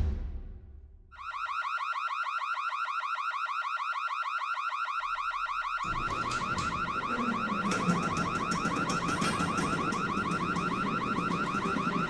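Bank burglar alarm ringing, a fast, steady, repeating alarm tone that starts about a second in and signals the break-in at the safe. About halfway through a low rumble joins beneath it.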